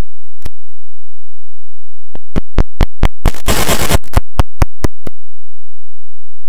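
A run of sharp clicks, about five a second, around a short burst of harsh static. A single click comes earlier, over a faint steady hum.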